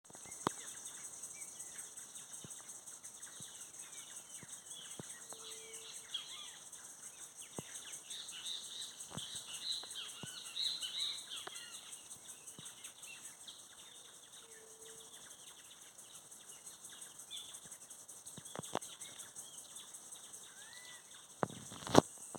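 Outdoor nature ambience: many small birds chirping, busiest in the middle, over a steady high-pitched pulsing hum, with scattered clicks and a sharp knock near the end.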